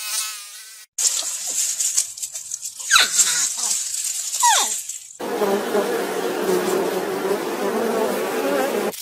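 Hedgehog eating, a few seconds of crunchy chewing noise with two quick squeaks. Then the steady buzz of a bee at a thistle flower takes over about halfway through and carries on to the end.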